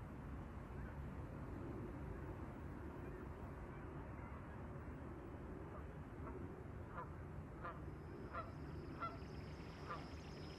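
Low steady ambient hum. From about six and a half seconds in come six or seven short, faint honking bird calls, and a thin high whine joins near the end.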